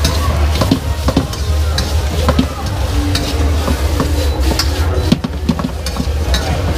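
Shredded vegetables sizzling in a steel wok while a metal wok spatula scrapes and clanks against the pan in quick, irregular strokes, over a steady low hum.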